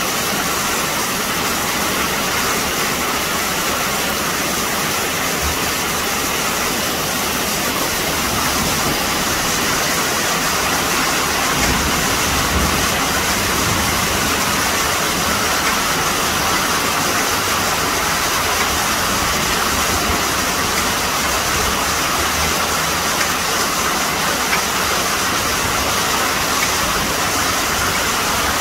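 Heavy rain mixed with small hail falling on clay roof tiles and paving: a steady, dense hiss.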